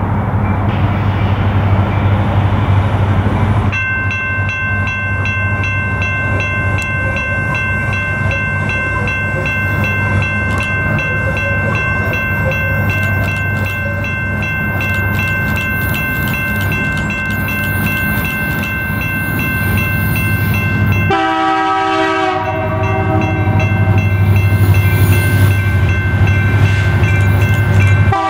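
Diesel freight locomotives rumbling as they approach, with a long steady high-pitched tone held over the rumble for most of the first three-quarters. About three-quarters of the way in, a locomotive's air horn sounds a chord, and it sounds again near the end.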